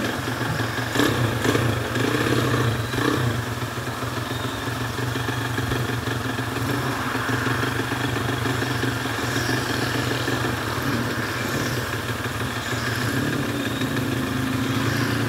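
Modified Honda C70 underbone motorcycle's engine running steadily on the move, with a few short clatters in the first few seconds.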